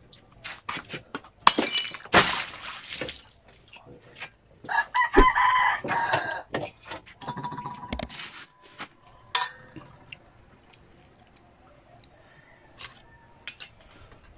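Cooked freshwater snails being eaten by hand: loud slurps as the meat is sucked from the shells, with sharp clicks of shells against the dishes. A louder, drawn-out sound comes about five seconds in, and the last few seconds are quieter.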